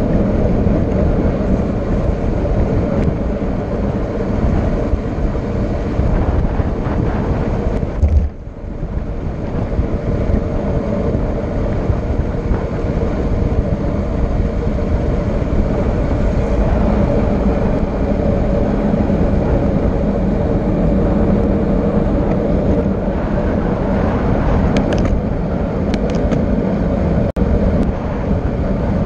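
Steady rush of wind on the microphone and road noise during a fast downhill descent, with a short knock and a brief dip in level about eight seconds in.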